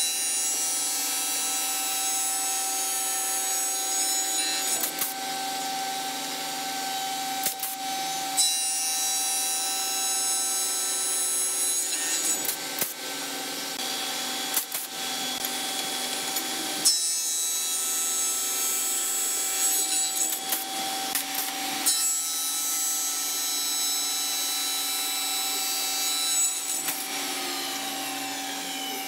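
Spindle moulder (wood shaper) running, its cutter head spinning with a steady whine while wooden workpieces held in a clamping jig are fed past it. Rasping cutting noise comes and goes in several passes, broken by a few sharp clicks.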